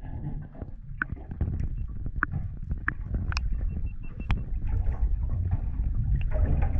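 A steady low rumble with about six sharp knocks and clicks over the first few seconds, as a hooked school shark is handled and thrashes beside a small boat.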